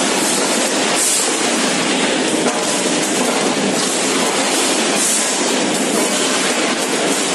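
Poultry packing line machinery running, with plastic modular-belt incline conveyors carrying chicken pieces: a steady, loud machine noise with slight swells about a second in and again about four seconds later.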